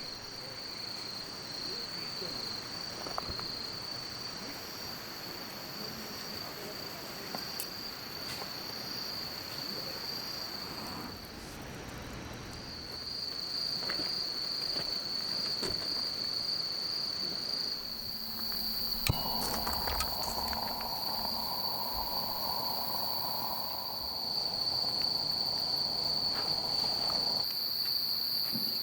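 Insects trilling in one steady, high, unbroken tone, breaking off briefly about a third of the way through, with scattered faint clicks. A soft hiss joins in for several seconds in the second half.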